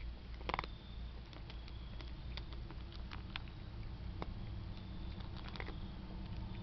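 Long-haired cat eating a snack: irregular sharp crunching clicks, with a louder cluster about half a second in and another near the end, over a steady low hum.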